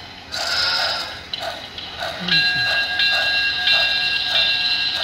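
Sound decoder of a model steam locomotive, run by DCC: a steady rhythmic chuffing of about one and a half beats a second. About two seconds in, a long multi-tone steam whistle starts and is held.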